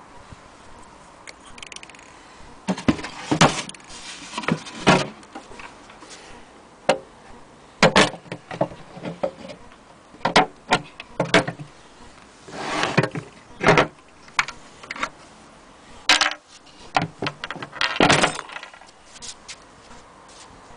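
Irregular knocks, clunks and short scrapes of a wooden sewing-machine carrying cover being handled and shifted about, with light metallic rattles from its fittings.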